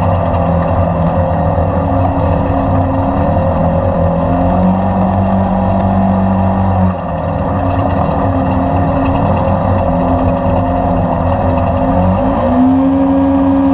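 Polaris RZR XP 1000 twin-cylinder engine running loud through an aftermarket Assassins exhaust while driving. Its note drops about halfway and climbs again near the end. A chirping noise rides along with it, which the owner suspects is the drive belt chirping.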